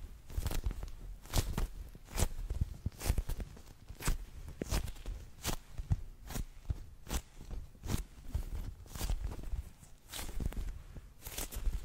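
Soft white bunny-shaped squishy toy squeezed and rubbed right against the microphone, making repeated short strokes a little more than once a second, some with low handling thumps.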